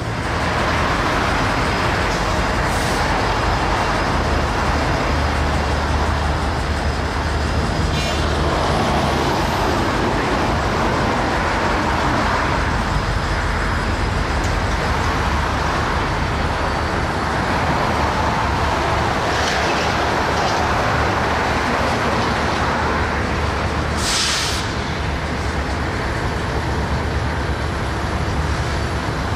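Diesel locomotive running with a steady low engine drone under a wash of mechanical noise, broken by a few short hisses of air, the strongest well into the second half.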